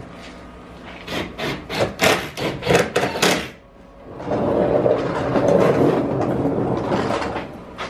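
Hand-tool work on the car's underside: a rapid run of about ten short strokes, then a steady noisy scraping or rubbing sound lasting about three seconds.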